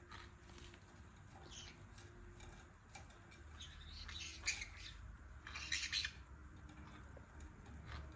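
Green-cheeked conures giving short squawks and chirps in scattered bursts, the loudest about four and a half and six seconds in.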